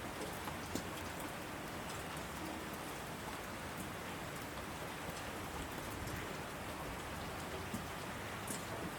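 Heavy rain falling on asphalt: a steady, even hiss with scattered sharp ticks of single drops striking the surface.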